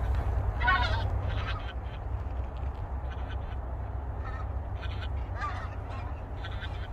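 Waterfowl, ducks or geese, giving a series of short honking calls, the loudest about a second in, over a steady low rumble.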